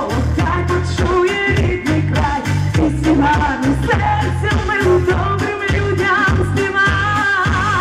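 Amplified pop song on a stage PA: a woman singing into a handheld microphone over a steady beat with heavy bass. Near the end a long wavering note is held.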